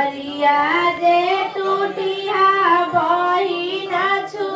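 A high-pitched voice singing a wedding folk song in long, held notes that bend gently in pitch.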